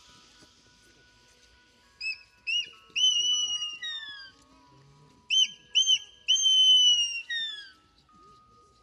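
Mountain hawk-eagle calling: two whistled phrases, each of two short rising notes followed by a long, slightly falling whistle that trails downward.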